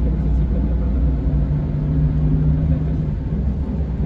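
Scania K410 coach's 13-litre six-cylinder diesel engine running steadily with a deep rumble. A humming tone over the rumble holds until about three seconds in, then fades.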